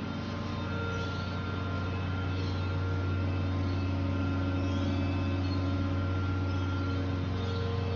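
A steady low mechanical hum with several fainter steady tones above it, unchanging throughout.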